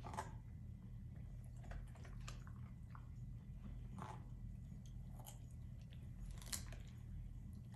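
A puppy chewing a raw carrot: faint, irregular crunches every second or so, the loudest near the end.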